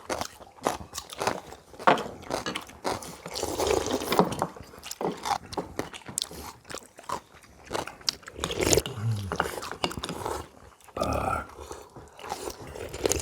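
People eating a hot pot meal: chewing and slurping, with irregular light clicks of spoons and chopsticks against bowls.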